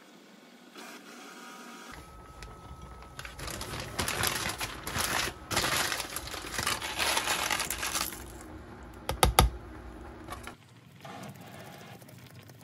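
Wooden chopsticks clicking and scraping against a saucepan while dough flakes and fish cake are moved about in hot broth, with a short cluster of sharp clicks about nine seconds in.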